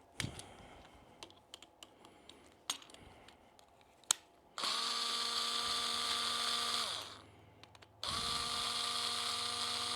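Small handling clicks and taps, then a cordless electric screwdriver running twice, each run a steady whine of about two seconds, driving in a clamp screw; the first run winds down in pitch as it stops.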